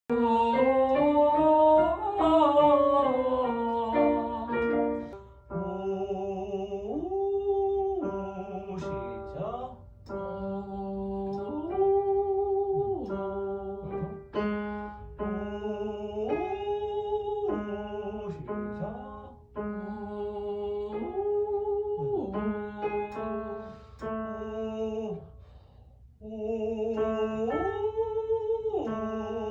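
A voice singing vocal exercises. A held note with vibrato drifts downward, then a short figure repeats several times: a low note swoops up about an octave, holds, and slides back down.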